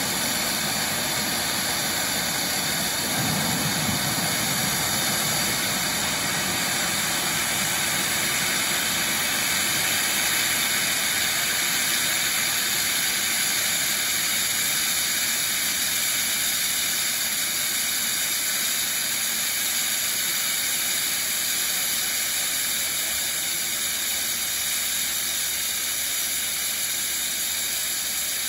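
Steam blasting out under pressure from the side of a stationary live-steam miniature locomotive: a loud, steady hiss that holds throughout.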